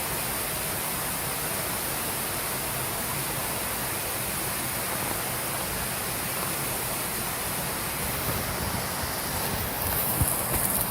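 Steady rush of flowing water, an even hiss with no rhythm, with a few soft uneven knocks near the end.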